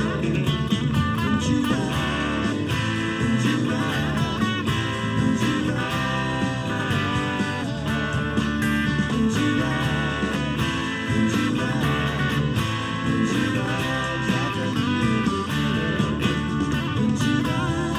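Stratocaster-style electric guitar playing improvised lead lines with bent and vibrato notes over a full blues-rock band recording.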